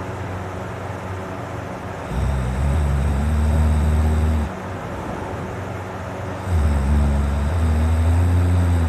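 A man snoring deeply: two long, low snores of about two and a half seconds each, the first starting about two seconds in and the second past six seconds.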